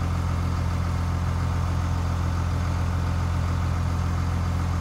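Truck-mounted crane's engine running steadily at a constant speed, a low, unchanging hum that powers the crane while it holds the load.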